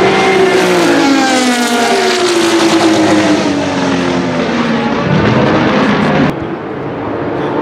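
Porsche 935 K3's twin-turbo flat-six race engine going past at speed, its note falling steadily as it passes and pulls away, with another racing car close behind. About six seconds in the sound drops suddenly to a quieter engine note.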